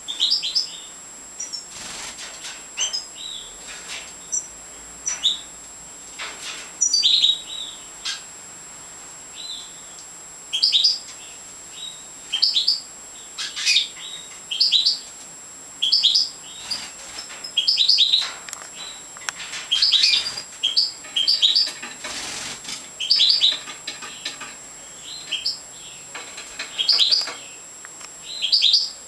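Caged European goldfinches of the large major form (Carduelis carduelis major) calling: short, bright chirps in quick clusters, repeated every second or so.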